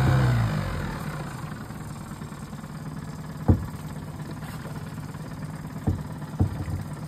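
Boat motor being throttled back, its pitch falling within the first second, then idling steadily. Three short knocks sound over the idle, one near the middle and two close together near the end.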